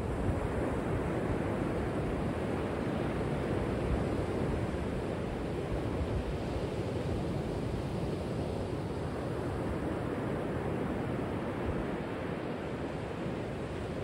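Ocean surf breaking on an offshore reef: a steady, even wash of waves.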